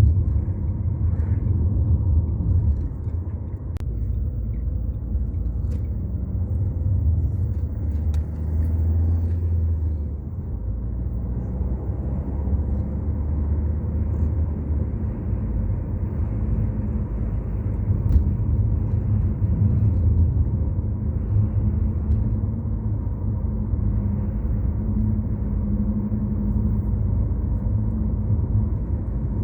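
Sea waves breaking on a beach, heard as a steady low roar that swells and eases slightly.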